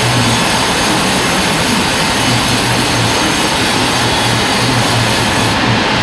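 Band sawmill running: a loud, steady machine noise with a pulsing low hum. The high hiss drops away near the end.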